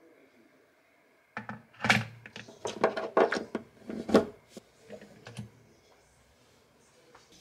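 Handling noise from an electric kettle and its power cord: a run of sharp clicks, knocks and rattles as the plug is worked out of a wall socket and the kettle is moved, then quiet. There is one sharp knock at the very end.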